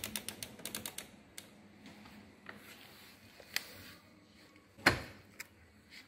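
Rotary program selector dial of a tumble dryer turned by hand: a quick run of about ten detent clicks in the first second, then a few scattered light clicks. About five seconds in comes a single loud thud as the dryer door is pulled open.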